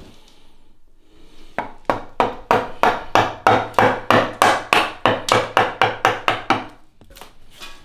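Wooden mallet driving a carving chisel into a wooden post: a fast, even run of sharp blows, about four or five a second, that starts about a second and a half in and stops shortly before the end.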